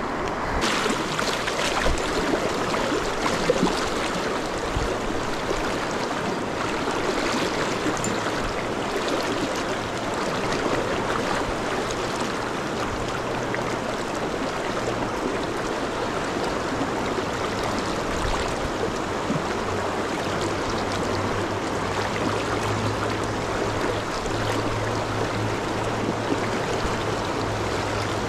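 Yoshino River rapids rushing steadily. A faint low hum comes in briefly around the middle and again in the last third.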